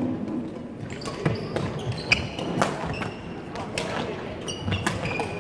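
A badminton doubles rally: a string of sharp racket hits on the shuttlecock and footfalls on a wooden court, with short high squeaks from court shoes and chatter in the hall behind.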